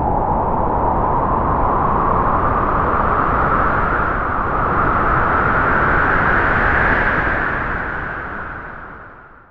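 A single long gust of wind, a rushing blow whose pitch rises slowly as it swells, then dies away near the end.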